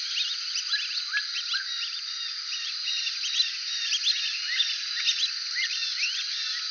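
Brazilian teals (ananaí ducks) calling together: many short, high whistled notes overlapping in a busy chorus, over a faint steady high-pitched hum.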